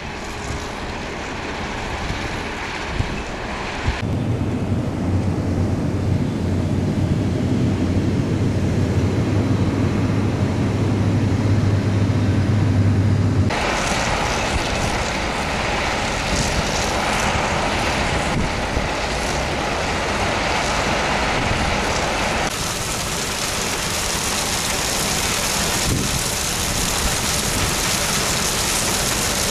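Iron ore crushing and screening plant running, heard in cut sections: a steady low machine hum for about ten seconds, then a noisier rushing section. In the last several seconds there is a steady rushing sound of crushed iron ore pouring off a conveyor onto a stockpile.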